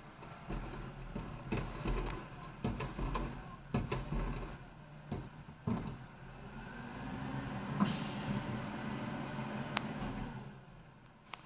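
Rear-loading recycling truck emptying a plastic recycling cart: the cart tipper lifts and shakes the cart with a run of knocks and bangs, then the engine speeds up for a few seconds with a sharp air hiss about eight seconds in.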